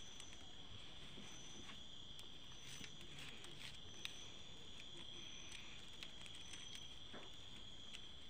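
Steady, high-pitched insect trill, with scattered light clicks and rustles of flat plastic strips being worked by hand.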